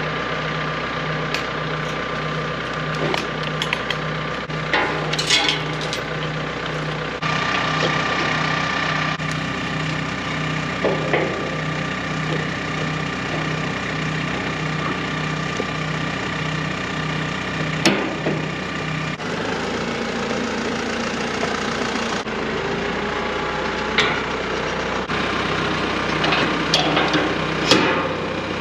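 Tractor engine idling steadily, with a slow pulse in its low hum. Now and then come sharp metal clinks and knocks as a PTO shaft and three-point hitch pins are fitted.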